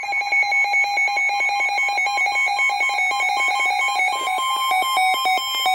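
Several NOAA weather radio receivers sounding their warning alarms at once: loud, rapid, overlapping electronic beeping at several pitches, the alert that a severe thunderstorm warning has been received.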